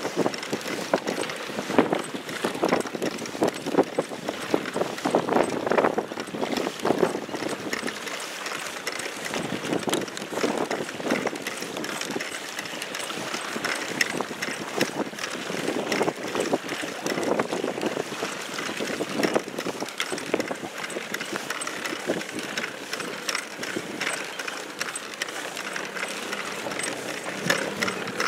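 Choppy water splashing and slapping against a small inflatable boat, with wind buffeting the microphone.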